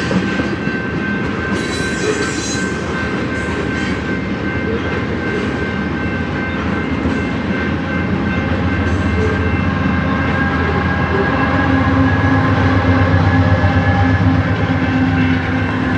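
CPKC freight train rolling past at trackside: a steady rumble and rattle of passing cars, with a thin high whine throughout and a deeper drone building over the last few seconds.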